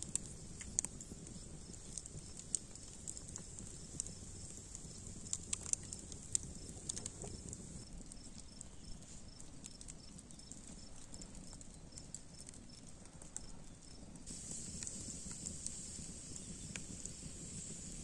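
Wood fire crackling under clay cooking pots, with scattered sharp pops that come thickest in the first seven seconds, over a steady low hiss.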